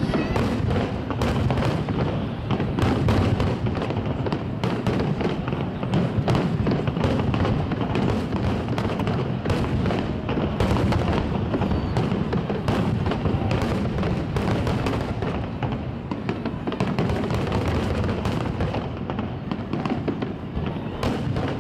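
Fireworks display: aerial shells bursting in quick succession, a dense run of overlapping bangs and crackles with deep booms.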